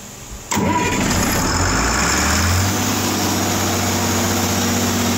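Allis-Chalmers 3500 426 cubic-inch six-cylinder diesel engine starting about half a second in: it fires almost at once with a sudden loud onset, climbs in speed over the next two seconds, then settles into a steady idle.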